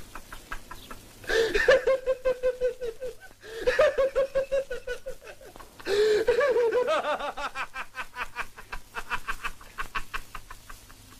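A person laughing hard in three long bouts of rapid, high-pitched ha-ha pulses, the last one trailing off into fainter, quicker pulses before it stops.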